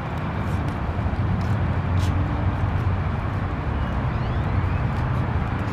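Steady outdoor traffic rumble: a low, even background noise of vehicles.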